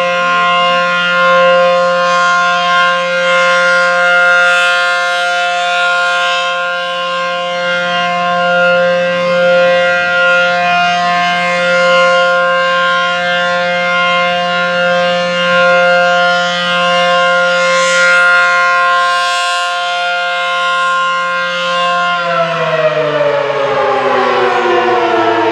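ACA Allertor 125 outdoor warning siren sounding a steady chord during its monthly test, swelling and fading every few seconds. Near the end the whole chord starts to fall in pitch as the siren winds down.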